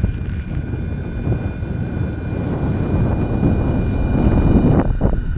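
Strong wind buffeting the microphone in a blowing snowstorm: a rough, gusting rumble that swells to its loudest about four seconds in.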